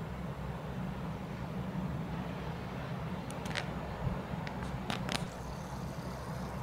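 Steady seashore noise: surf washing with wind rumbling on the microphone, and a few faint short clicks in the middle.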